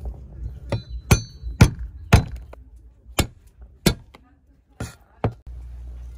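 Cleaver chopping garlic cloves on a wooden chopping board: about eight sharp, unevenly spaced chops. Near the end the chopping stops and a steady low rumble takes over.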